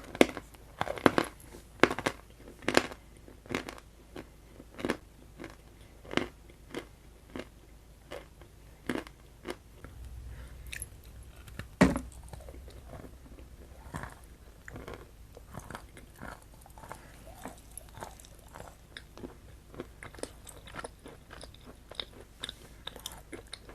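Close-miked chewing and biting, with sharp wet mouth clicks and small crunches; one louder bite about halfway, then quicker, softer clicks.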